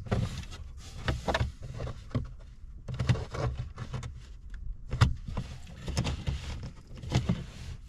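Plastic dashboard trim panel being pulled and worked against its hidden retaining clips: a series of irregular knocks, creaks and clicks, the sharpest about five seconds in.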